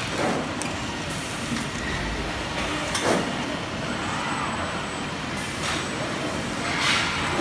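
Steady running noise of a fertilizer bag palletizing line, from roller conveyors, a bag-flattening conveyor and a robot palletizer, with three short hisses a few seconds apart.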